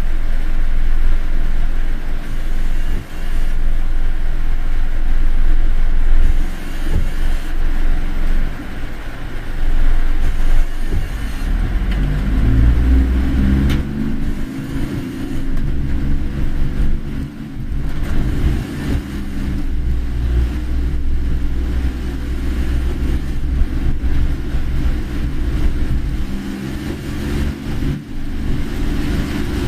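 Car driving on a rain-soaked road: a steady low rumble of engine and tyres with a hiss of water over it, and a pitched engine hum that comes in about twelve seconds in.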